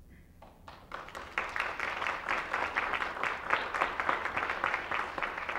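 Audience applauding, a dense patter of many hands clapping that starts about half a second in and quickly builds.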